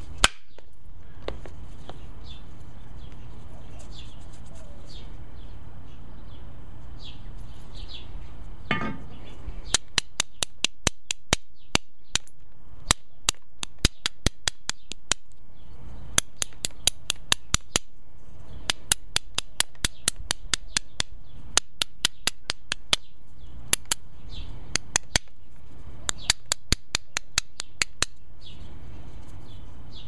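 Rapid sharp clicks of a round hammerstone tapping the edge of a knapped stone flake, in runs of several a second from about ten seconds in, with one louder click at the very start. Faint bird chirps over a steady outdoor hiss.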